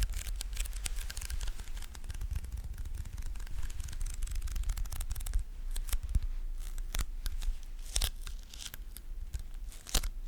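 Close-miked sticky crackling: a tacky surface being touched and pulled away again and again, giving a dense run of small crackles and pops, with a few louder pops near the end.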